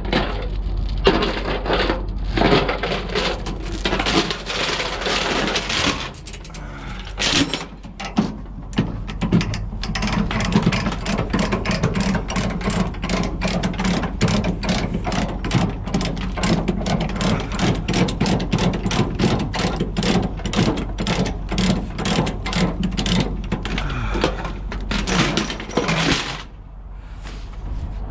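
An engine running steadily, with a fast run of mechanical clicks over most of its sound.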